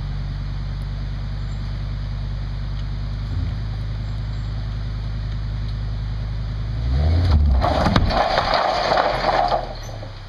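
A vehicle engine runs steadily. About seven seconds in comes a loud scraping and rumbling, starting with a low thud and lasting two to three seconds: the cabin sliding off the back of the low-bed trailer onto the ground. The engine then sounds quieter.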